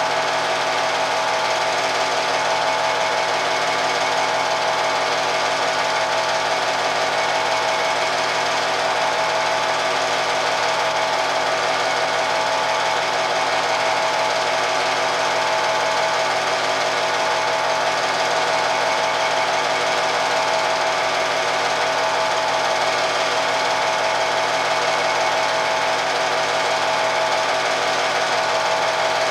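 Home-movie film projector running: a steady mechanical clatter with a constant hum, unchanging in speed and level.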